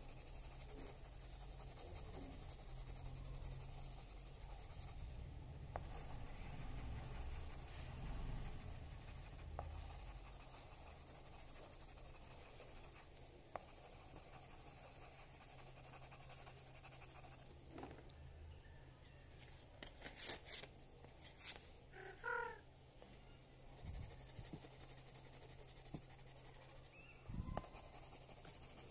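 Colored pencil scratching on paper while shading in small strokes, faint and steady, with a few light taps. About two-thirds of the way through there is one brief pitched chirp.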